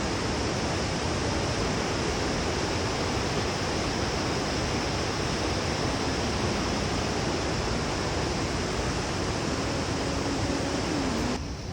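Steady rushing of a waterfall: an even, fairly loud wash of falling water that cuts off suddenly near the end.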